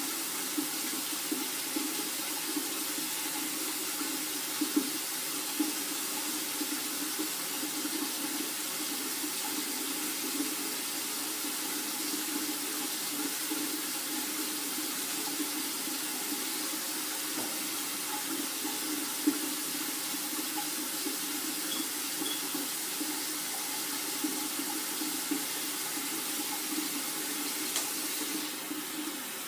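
Water running steadily, a continuous splashing hiss with a few small knocks; the higher hiss thins out near the end.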